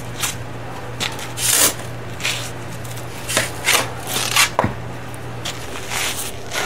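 Short-handled shovel scooping and scraping sand, in a series of irregular scrapes, some with the blade grating on stone. Near the end, hands brush sand off a flat rock slab.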